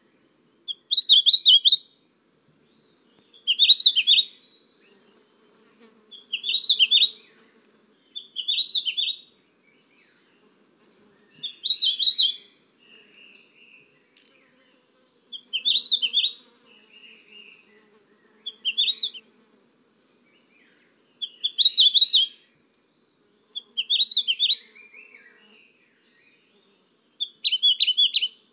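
A songbird singing a short, high chirping phrase about every two to three seconds, about ten times, with silence between phrases.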